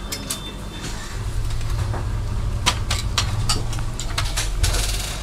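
Scattered clicks and taps of hands working over an opened projector's circuit board and plastic housing as its connectors are unplugged, over a low steady rumble that comes up about a second in.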